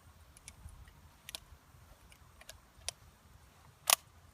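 Sparse light clicks and taps of metal handling: the Smith & Wesson 500 revolver and its cartridges being handled. One sharper, louder click comes near the end.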